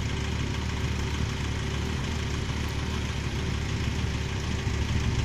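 Road vehicle engines idling steadily: a low, even hum.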